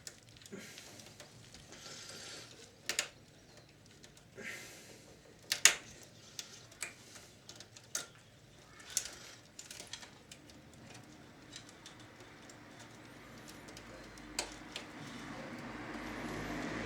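Scattered clicks, taps and light scrapes of hands and tools working on the plastic and metal parts inside an opened VCR, with a low hum growing slowly louder near the end.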